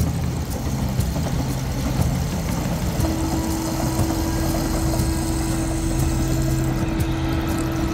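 Regional passenger train running past on the line below, its engine giving a steady low hum. A steady higher tone joins it about three seconds in and holds.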